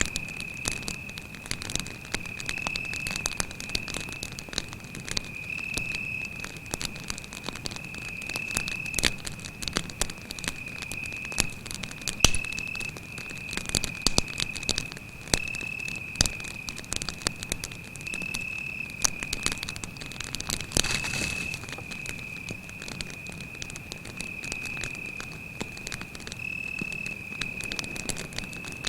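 Wood campfire crackling with irregular sharp pops, the loudest about twelve seconds in, over a steady high-pitched cricket trill that never stops.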